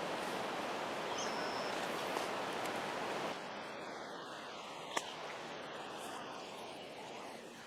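Outdoor ambience: a steady hiss of background noise that drops in level about three seconds in, with a brief high chirp early on and a single sharp click about five seconds in.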